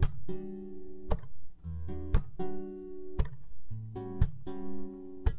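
Acoustic guitar playing a slow run of chords with low notes beneath, at the start of a song, and a sharp click about once a second keeping time.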